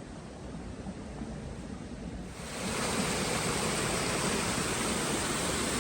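A steady rushing noise that grows louder and brighter about two and a half seconds in.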